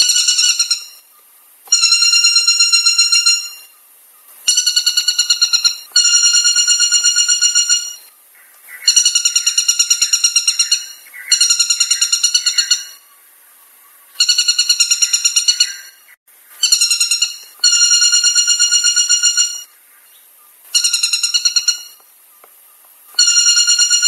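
White-bellied woodpecker calling: about ten loud series of rapid, sharp, ringing notes, each lasting one to two seconds with short pauses between. In the middle a second, wavering call overlaps two of the series.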